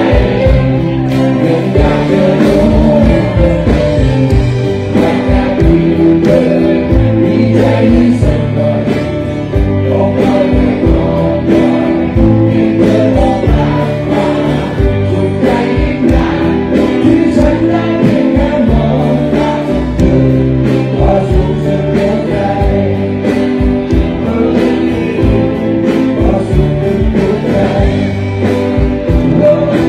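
A live Thai rock band plays at full volume, with singing over drums, bass and guitars. Many voices sing along, as a concert crowd does.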